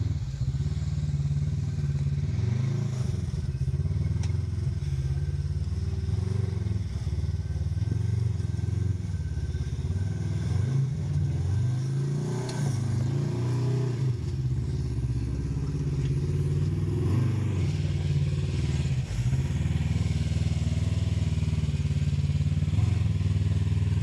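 Polaris RZR XP 1000 side-by-side's twin-cylinder engine running under load at low revs, the revs rising and falling again and again as it crawls up over rock ledges.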